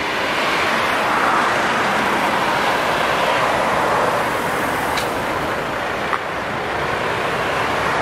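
Steady traffic noise from cars driving past on a busy road, with a couple of faint clicks about five and six seconds in.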